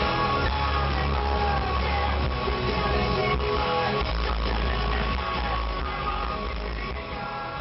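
Rock music with guitar, starting to fade out near the end.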